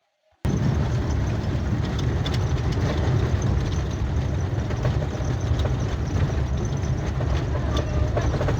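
An engine running steadily with a heavy low rumble and a few light clicks over it, cutting in suddenly about half a second in.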